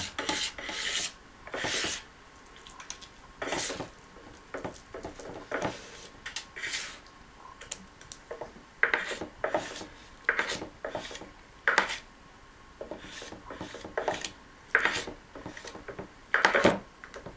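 A knife blade scraping, chopping and spreading wet paper clay (clay mixed with paper pulp) on a board, in a run of irregular strokes, some short, some drawn out. The clay is being worked to one even consistency.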